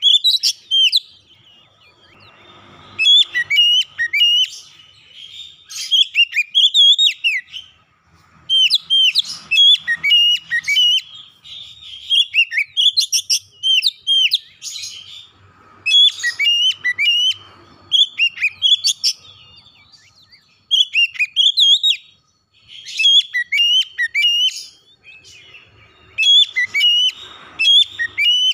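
Oriental magpie-robin singing: loud phrases of varied whistled notes that sweep up and down in pitch, each phrase one to three seconds long, repeated with short pauses between.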